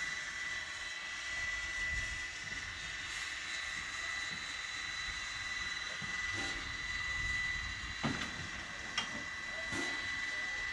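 Steam locomotive Energie 507 standing with steam up: a steady hiss of steam with a constant high whine running under it, and two sharp knocks about eight and nine seconds in.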